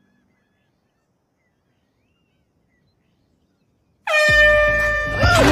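Near silence, then about four seconds in a handheld canned air horn goes off with one loud, steady honk. A startled cry breaks in over it just before the end.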